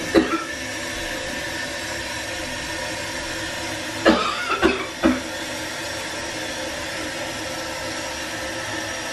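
A woman retching and gagging over a toilet, faked as being sick: one short heave just after the start, then three louder ones about four to five seconds in. A steady hum runs underneath.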